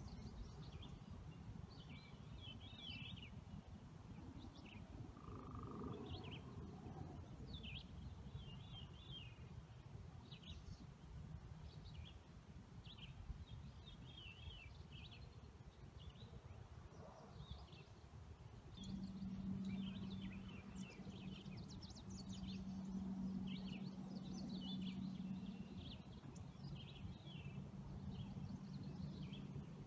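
Faint, repeated high chirping, bird-like, over a low rumble. A steady low hum comes in about two-thirds of the way through.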